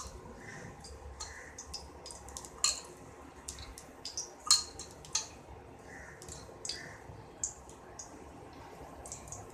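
A spoon clinking in a steel tumbler and drops of cooking oil landing in a heated pan: scattered light clicks and drips, with a few sharper ticks.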